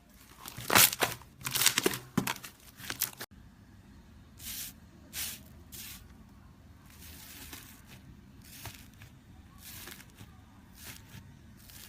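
Slime being squeezed and pressed, giving crackling, popping squelches. A loud run of crackles comes in the first three seconds; after a sudden cut, softer separate squishes follow about once a second.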